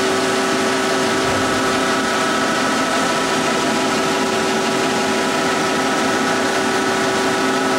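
2006 DMG Gildemeister NEF600 CNC lathe dry-running a program with no cutting: a steady machine hum with a few fixed tones over an even hiss.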